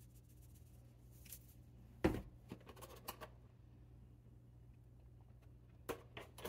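Faint kitchen handling sounds: a sharp click about two seconds in, a few light ticks soon after and a couple more near the end, as seasoning and cream containers are handled over a pot of mashed potatoes. A steady low hum runs underneath.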